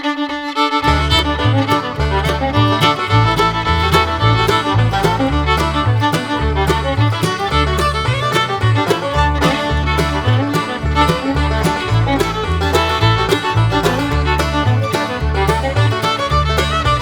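Background music: a fiddle-led tune with a steady bass beat that comes in about a second in.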